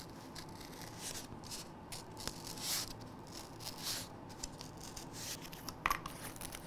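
Scalpel blade cutting through a sheet of Plastazote polyethylene foam in short, faint, scratchy strokes, the loudest stroke about halfway through, with a sharp click near the end.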